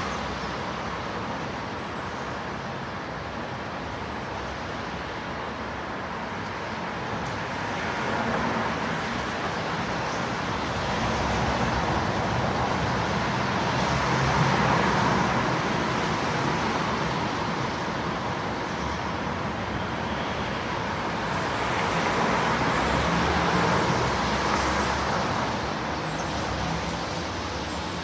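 Street traffic heard from about 50 m away in light rain: a steady wash of passing vehicles and tyres on the wet road, swelling as vehicles pass, with peaks a third of the way in and again near the end.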